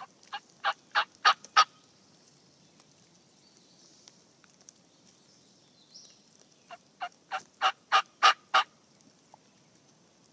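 Turkey yelping: two runs of short, sharp notes, about three a second, each run growing louder, one at the start and another about seven seconds in.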